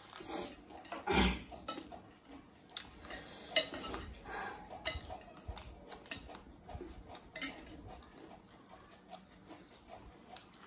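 Metal spoons clinking and scraping against glass plates as chatpat is scooped up and eaten, in irregular clicks with a louder clatter about a second in.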